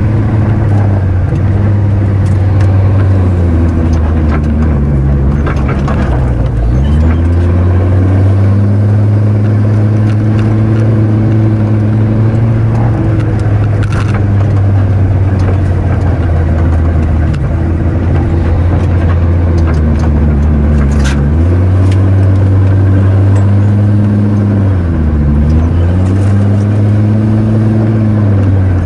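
Off-road 4x4's engine running loud and steady under load on a rough trail. Its pitch dips and comes back up as the throttle is eased and reapplied: about six seconds in, around twenty-one seconds, and twice near the end. A couple of sharp knocks come from the vehicle jolting over the ground.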